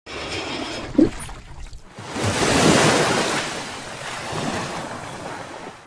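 Ocean surf sound effect: a short soft thud about a second in, then a wave rushes in near two seconds and slowly washes away.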